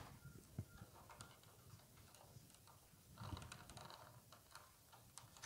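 Near silence with faint, scattered light clicks and soft rustles of paper weaving tubes being handled and a new tube being joined on to lengthen the weaver.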